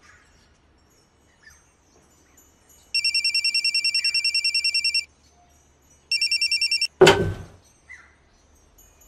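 A telephone ringing with a fast trill: one ring of about two seconds, then a second ring cut off after under a second by a loud clunk as the receiver is picked up.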